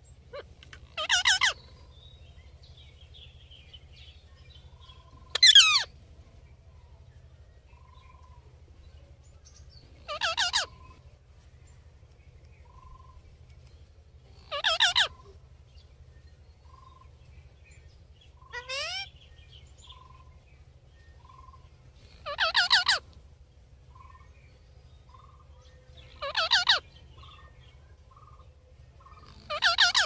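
Indian ringneck parakeets calling: eight loud, harsh screeches about four seconds apart, one of them a rising squawk, with faint short chirps between.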